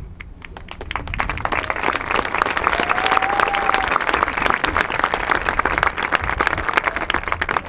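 Crowd applauding, building up about a second in and thinning toward the end, with one short whistle from the crowd around three seconds in.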